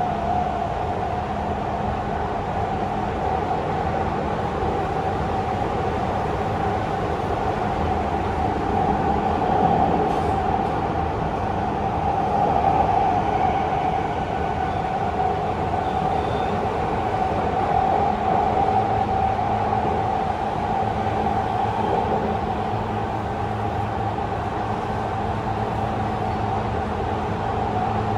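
Running sound inside a Tokyu 5050 series electric train car travelling at a steady speed through a subway tunnel: a constant rumble of wheels on rail with a steady hum that holds its pitch.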